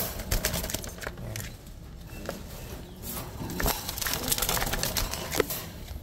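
Irregular clicks and light rattles of a wire pigeon cage being handled, with three sharper knocks: one just after the start, one past the middle and one near the end.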